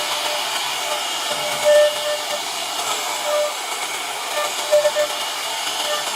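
CNC wood router running, a steady hiss with a faint high tone, and a few short tonal blips as it works.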